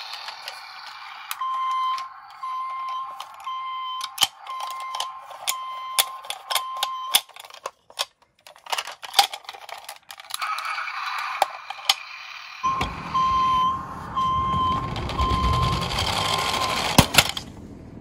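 Toy garbage truck's electronic sound unit beeping: short, even beeps, a little more than one a second, for about six seconds and again over a low rumble in the second half. Sharp plastic clicks in between as the truck is handled and its tipping body raised.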